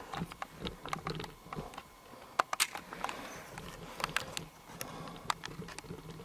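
A string of irregular light clicks and knocks, the loudest two close together about two and a half seconds in.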